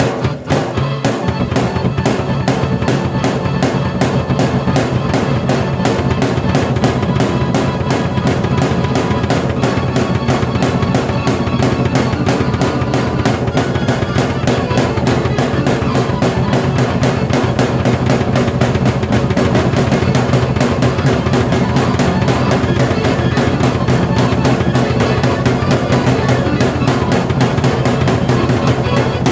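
A drum kit and a keyboard played together in a fast, busy groove: dense kick and snare strokes over sustained keyboard chords. The full beat kicks in about a second in.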